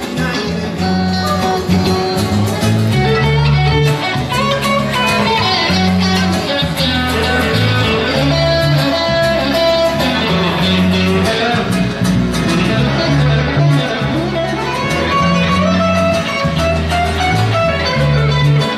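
Band music in an instrumental passage, guitar playing over a bass line, with no singing.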